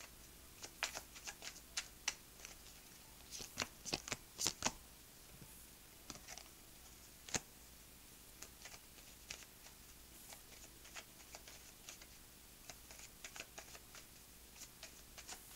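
A tarot deck being hand-shuffled: quick papery card snaps and riffles, busiest and loudest in the first five seconds, then lighter and more scattered, with one sharp snap a little past seven seconds in.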